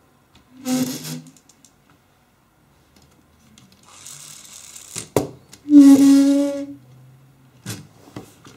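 Plastic clicks and knocks of a LEGO Technic model being handled on a wooden table, with a hiss about four seconds in. Two short steady pitched tones come near one second and six seconds in; the second is the loudest sound.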